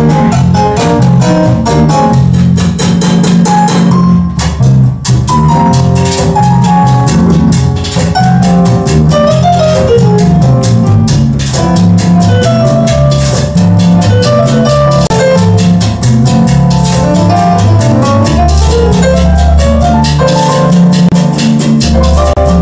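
Live band playing Latin jazz: electric bass guitar, congas, drums and cymbal, and keyboard, with a busy percussion groove and a moving bass line. There is a brief dip in the playing about four seconds in.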